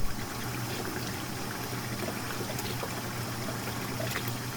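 Tap water running steadily while a freshly unwrapped tattoo is rinsed and washed, with a low steady hum underneath.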